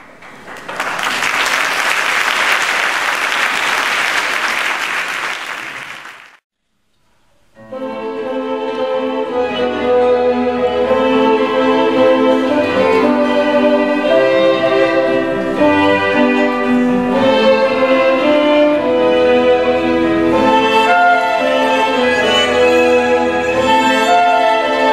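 Audience applauding for about six seconds, cutting off abruptly. After a second of silence, a symphony orchestra's strings begin an instrumental introduction, the violins carrying the tune over deep cello and bass notes that come and go, with no singing yet.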